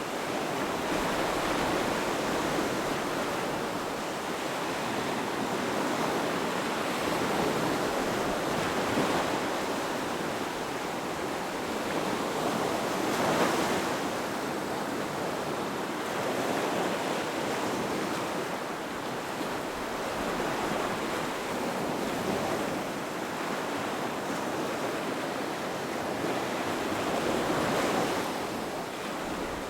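Ocean surf washing onto a shore: a continuous rush of water that swells and eases every few seconds as waves break.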